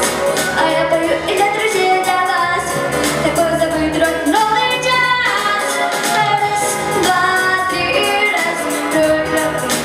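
A young girl singing a jazz and rock-and-roll pop song into a microphone over a backing track with a steady beat, with an upward slide in pitch about halfway through.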